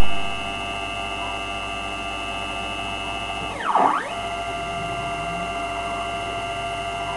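Stepper motor driving a homemade CNC's Y-axis lead screw at 3500 mm/min, a steady multi-tone whine whose pitch falls and rises again a little under four seconds in as the axis slows, reverses and speeds back up. The screw is only a rolled one and slightly bent; the owner says it runs freely mid-travel but binds at the ends.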